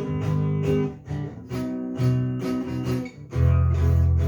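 Handmade acoustic guitar (violão) being strummed, a run of chords with the harmony changing about once a second, played to show off the instrument's full, ringing tone.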